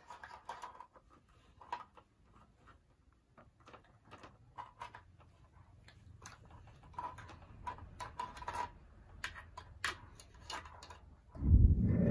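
Plastic toy food and toy cookware clicking and tapping against a plastic toy kitchen in light, irregular taps. Near the end a loud low thump lasting about a second.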